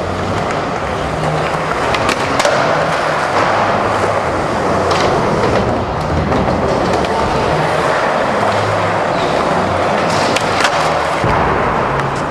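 Skateboard wheels rolling on a smooth concrete floor, a steady hiss, broken by a few sharp clacks of the board striking a ledge and the floor.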